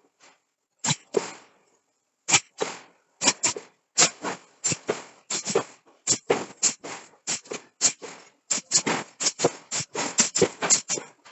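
Hammer blows on steel: sharp metal strikes coming in quick, irregular runs, each ringing briefly, with short gaps between.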